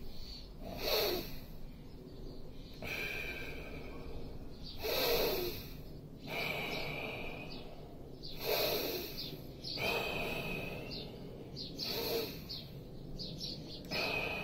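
A person breathing forcefully in a breathing exercise: four short, strong breaths about three to four seconds apart. Small birds chirp in the background.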